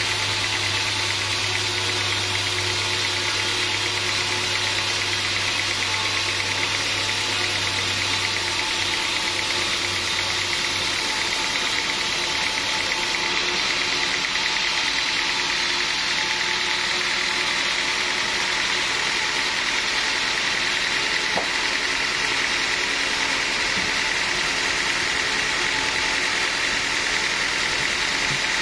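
Sawmill machinery running steadily, a continuous even hiss with a low hum that drops away about ten seconds in.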